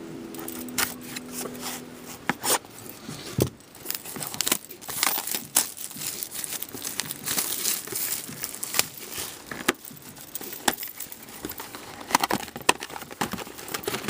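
Wrapping and cardboard of a sealed Upper Deck Trilogy hockey card box being torn and crinkled open, with many irregular sharp crackles and rustles.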